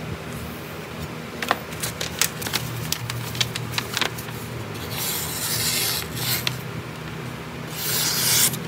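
A sheet of paper crackling and rustling as it is handled, then a freshly stropped knife slicing through it near the end, testing the edge's sharpness.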